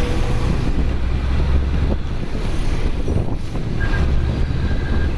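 Ashok Leyland turbo-intercooled BS-3 bus diesel engine running steadily with a deep rumble, mixed with wind rushing on the microphone. A faint high whistle comes in for about a second near the end.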